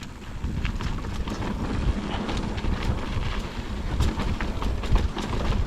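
Wind buffeting the action camera's microphone while a mountain bike rides down a dirt trail, a steady low rumble scattered with many small rattles and knocks from the bike over rough ground.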